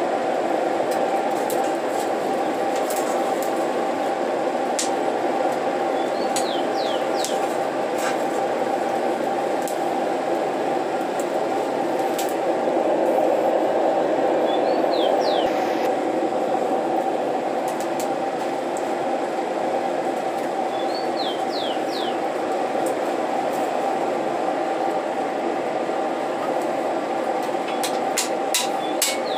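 Steady rushing noise of an air-blown forge fire, heating a steel part red-hot for bending. A small bird chirps briefly three times, and a couple of light metal taps come just at the end.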